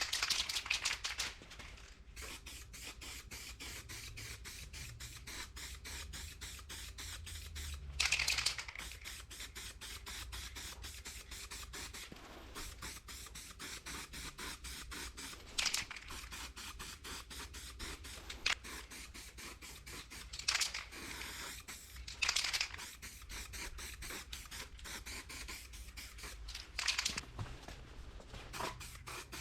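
Aerosol spray-paint can hissing in repeated short bursts as black paint goes onto plastic grilles.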